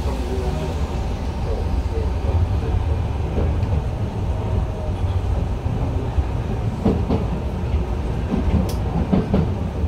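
Enshu Railway 2000 series electric train running, heard from inside the cab as it pulls away from a station: a steady low rumble with a few rail clacks in the second half.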